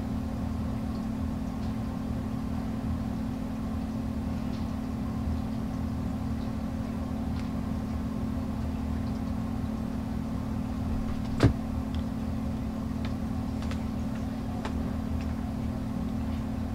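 Steady low machine hum in the room, with a single sharp click about eleven seconds in and a few faint ticks after it.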